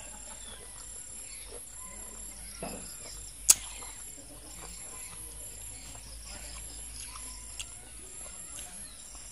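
Steady insect chirping, a high trill pulsing about twice a second, with one sharp loud click about three and a half seconds in and a smaller click a few seconds later.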